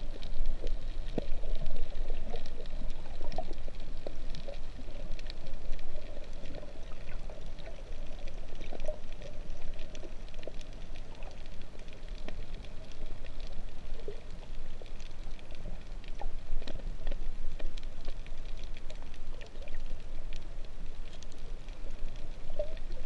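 Underwater sound picked up by a GoPro in its waterproof housing: muffled sloshing and gurgling water, with many scattered small clicks and crackles throughout.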